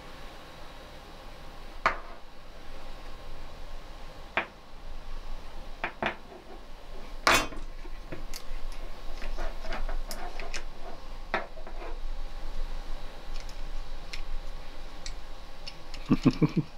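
Plastic and metal faucet parts being handled and set down on a wooden table: scattered clicks and knocks, the sharpest about seven seconds in.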